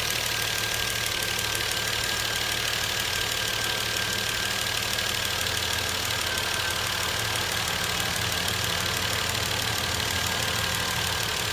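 2012 Volvo S60 T6's turbocharged 3.0-litre straight-six idling steadily from a cold start, with a faint steady high whine.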